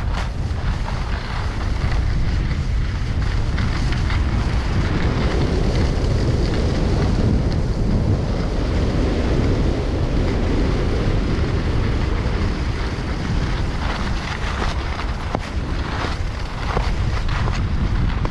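Wind buffeting the microphone of a moving skier's camera, a steady low rumble, with the hiss and scrape of skis sliding over packed snow, the scraping more frequent in the last few seconds.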